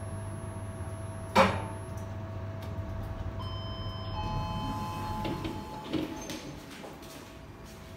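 Kone Ecodisc gearless traction lift car humming steadily as it runs, with a sharp knock about a second and a half in. A few steady electronic tones then sound, the doors slide open, and the hum dies away near the end.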